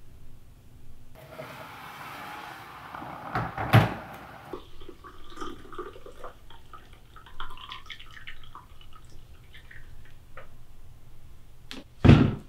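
French press plunger pushed down through the coffee with a rushing hiss and a knock as it bottoms out, then coffee poured from the press into a ceramic mug with a trickling splash, and a couple of sharp knocks near the end.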